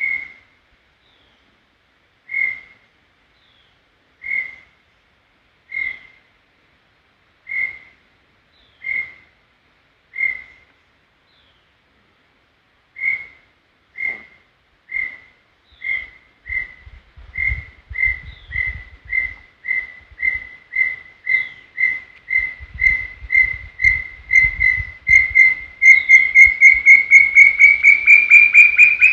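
Brown tinamou (inhambuguaçu) singing: single pure whistled notes, slow and spaced at first, then coming faster and faster and growing louder, creeping up in pitch toward the end of the phrase.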